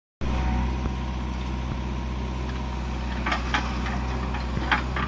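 A JCB 3DX backhoe loader's diesel engine runs steadily while it works. From about three seconds in there are a few short sharp knocks as soil drops from the bucket into a steel tractor trolley.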